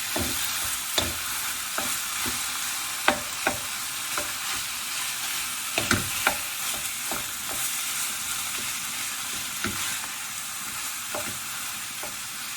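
Pork and beef mince sizzling in hot oil in a wok, with the clack of a utensil scraping and stirring it against the metal now and then.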